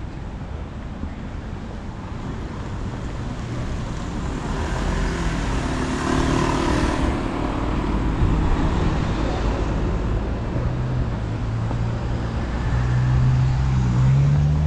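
Street traffic: a steady low rumble of cars, one vehicle passing louder about five seconds in, and a low engine drone building in the last few seconds.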